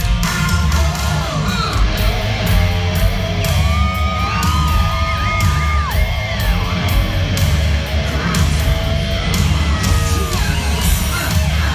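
A hard rock band playing live through an arena PA, heard from the audience with heavy bass and drums and a long held note about four seconds in. Fans yell along over the music.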